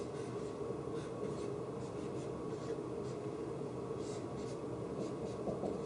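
Dry-erase marker drawing on a whiteboard in short, irregular strokes, over a steady background hum.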